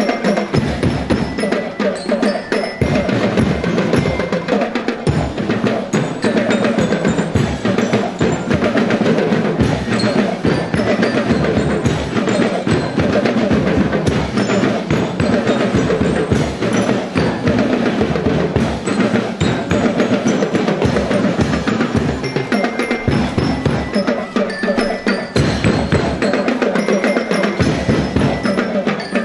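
Marching band drumline playing: snare and bass drums beat a steady, driving rhythm, with a few bell-like ringing tones over it.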